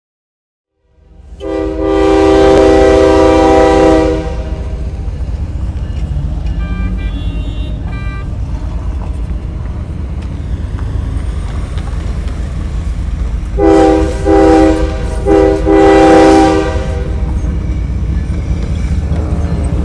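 Multi-chime air horn of an approaching diesel freight locomotive: one long blast, fainter short toots around seven seconds in, then three more blasts, the last the longest. The locomotive's engine rumbles low throughout.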